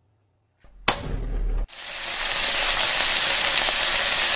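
Frying sound effect for a pan on the flame. A sharp click and a short low rush come about a second in. Then a sizzling hiss swells up and holds steady.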